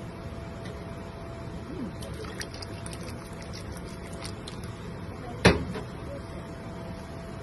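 A spoon stirring broth in a metal stockpot, with light clinks, then one sharp knock of the spoon against the pot about five and a half seconds in, over a steady hum.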